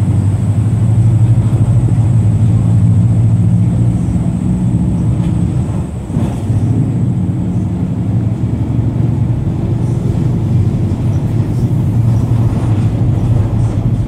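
The MAN D0834 225 hp four-cylinder inline diesel of a Volkswagen 17-230 OD Euro V bus running under way, a steady low drone that briefly falls off about six seconds in and then picks up again.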